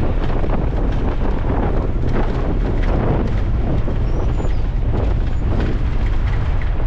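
Heavy wind buffeting the microphone while moving along a road, with a dense low rumble of travel underneath.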